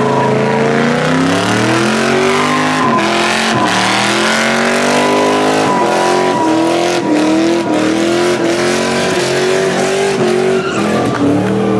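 A vehicle's engine revving up and down in waves while its tyres squeal in a continuous slide, as in sideshow donuts.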